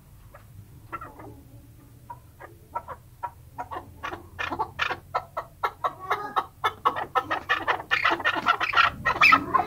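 Chukar partridge calling: a few short clucking notes at first, then a quick run of chuk notes that gets faster and louder toward the end.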